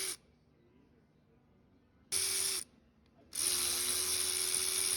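Power tool spinning out the bolts that hold a CV axle to its stub shaft. It runs in two bursts, a short half-second one about two seconds in and a longer two-second run from just past three seconds, each a steady hum with a strong hiss.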